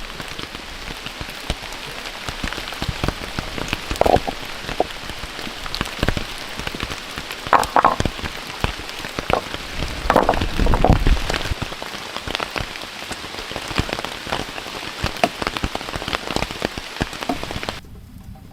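Steady rain, with many drops pattering on a surface close by and a few louder knocks scattered through; the rain cuts off suddenly near the end.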